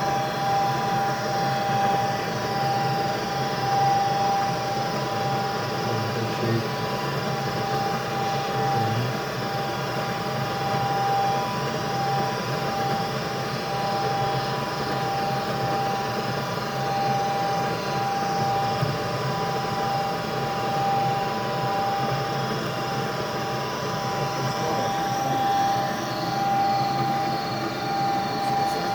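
Gas furnace draft inducer motor running steadily with a constant whine, in a furnace faulting because its pressure switch stays open.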